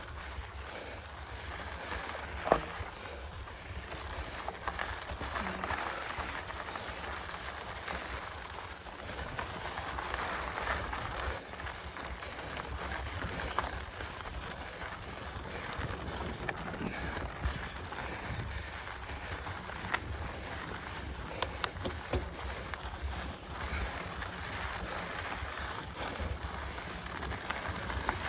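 Mountain bike riding on a dirt trail: steady rolling and rattling noise with a low rumble of wind on the microphone, broken by a few sharp clicks and knocks.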